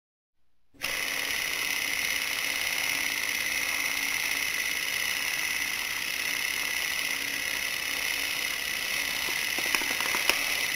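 Film projector running, a steady mechanical whirr starting about a second in, with two sharp clicks near the end.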